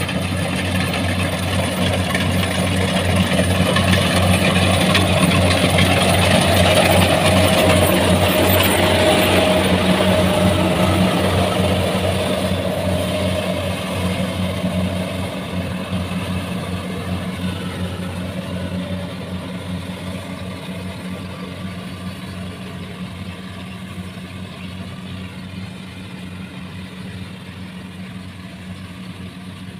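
Kubota rice combine harvester running while it cuts: a steady diesel engine note under the noise of its machinery. It grows loudest as it passes close, a few seconds in, then fades steadily as it moves away.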